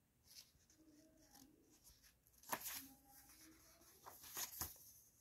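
Faint paper handling: a paperback picture book's cover and pages being opened and turned by hand, with a few short sharp paper clicks and rustles about two and a half and four and a half seconds in.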